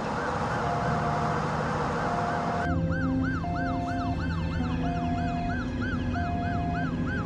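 Ambulance siren sounding in quick repeated up-and-down sweeps, about three a second, alongside a tone that switches on and off, over a steady low vehicle hum. A rushing noise under it drops away about two and a half seconds in.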